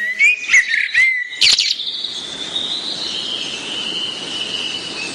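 Small birds chirping: several quick chirps in the first second and a half, then a continuous high-pitched trilling chorus over a steady background hiss.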